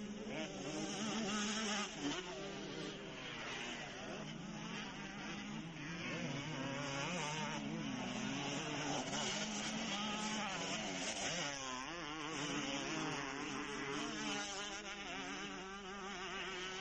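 Several motocross bikes' engines revving up and down as they race around the dirt track: a high, wavering whine of overlapping rising and falling pitches.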